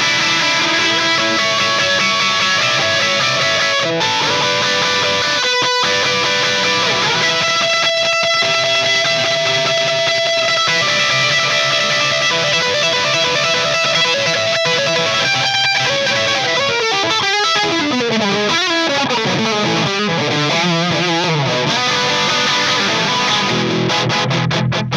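Electric guitar played through a Joyo Time Magic delay and a Joyo Future Chorus pedal into an Orange Micro Terror amp, with sustained notes and chords carrying delay repeats and chorus shimmer. From about 17 to 21 seconds in, a wavering run of notes mostly falls in pitch.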